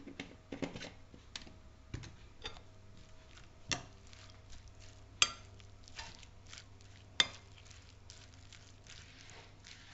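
Metal spoon stirring shredded cabbage and carrot with salad dressing in a bowl: soft rustling of the shreds with scattered clinks of the spoon against the bowl, three of them sharper.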